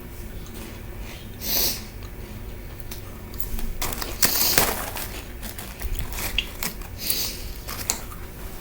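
A person sniffing and breathing close to the microphone: a few short noisy sniffs and snorts, the loudest about four seconds in.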